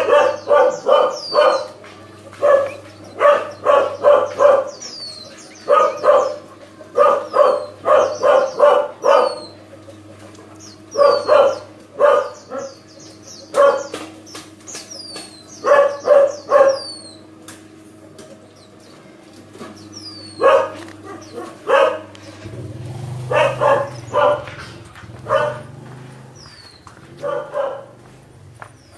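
A dog barking in quick runs of several barks, over and over, with faint, high, falling chirps of small birds behind it.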